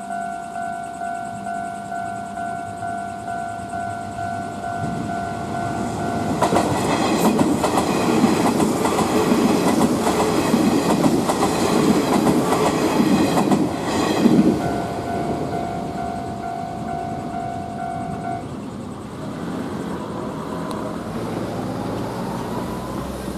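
Japanese level-crossing alarm bell ringing at about two strokes a second while an electric train passes on the Kintetsu Nara Line: the train's rumble and wheel clatter over the rail joints begin about six seconds in and are loudest around fourteen seconds. The bell stops a few seconds after the train has gone, and a faint rising whine follows near the end.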